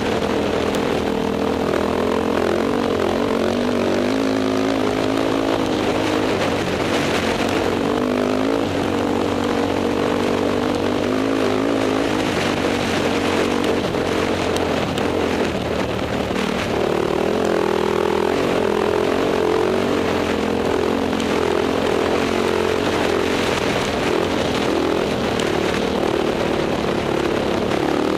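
Dirt bike engine running under way, close to the microphone, its pitch rising and falling as the throttle changes, over a steady rushing noise of wind and the rough trail.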